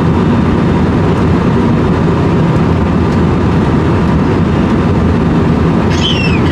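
Airbus A320 cabin noise in flight: a steady rush of airflow and engine drone, strongest in the low range. About six seconds in there is a brief high-pitched sound that falls in pitch.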